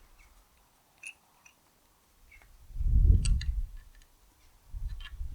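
Light metallic clicks and taps from bolts and tools being handled on a tractor axle casing, with a heavier low clunk about three seconds in and a smaller one near the end.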